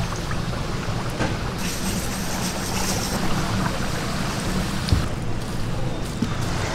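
Battered snacks frying in a wide pan of hot oil, sizzling steadily over a low steady hum, with a couple of light knocks.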